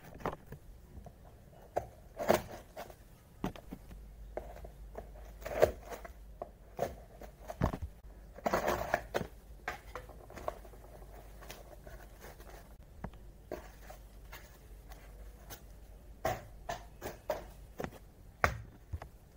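Hands handling a taped cardboard shipping box: scattered taps, knocks and scrapes of cardboard on a wooden desk, with a longer stretch of crackling, like tape being peeled or torn, about nine seconds in.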